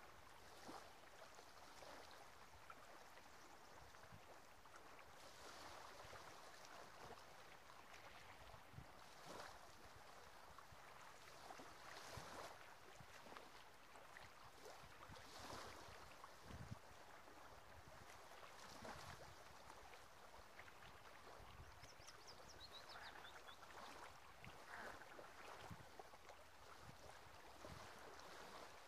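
Faint small sea waves lapping on a sand-and-stone shore, a soft wash swelling every three to four seconds. A brief run of high chirps comes about two-thirds of the way through.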